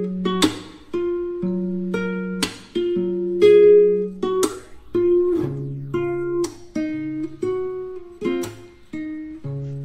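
Background music: strummed chords on a plucked-string instrument with a steady, gentle beat.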